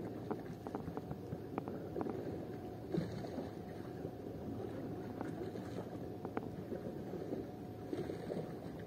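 Steady low rumble of a small boat at sea, with a faint steady hum and scattered light knocks.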